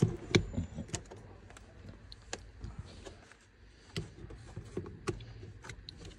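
Hard plastic clicks and knocks as a plastic cover over the van's battery compartment is handled and pushed into place by hand. The loudest knocks come in a quick cluster at the start, then lighter scattered clicks follow; the cover is not closing properly.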